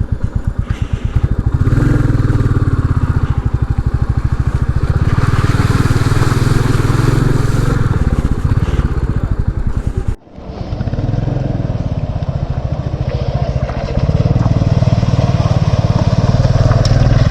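Royal Enfield Classic 350's single-cylinder engine thumping steadily as the motorcycle rides along. The sound breaks off abruptly about ten seconds in, then carries on.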